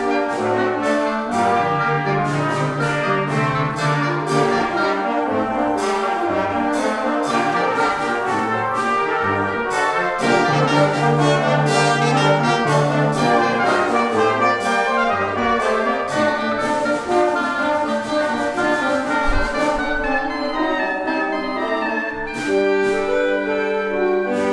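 A concert band playing: flutes, clarinets and bassoon with brass behind them, the brass prominent. A low note is held for about three seconds twice, near the start and again about halfway through.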